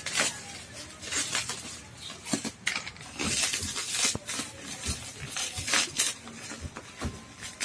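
Plastic bag and bubble wrap crinkling and rustling in irregular bursts as they are pulled open by hand, densest about three to four and a half seconds in.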